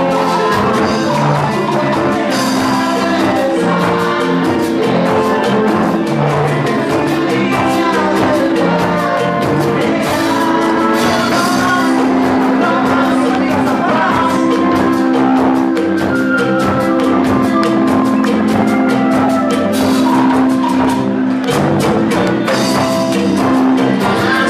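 Live band music with a steady dance beat, loud and continuous.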